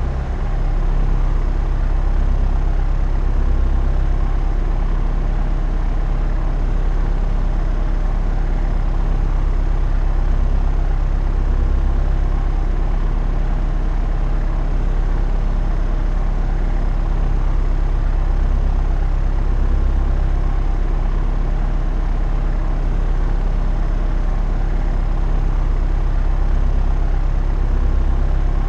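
Propeller aircraft in flight: a steady engine and propeller drone with a strong low hum and evenly spaced steady tones above it.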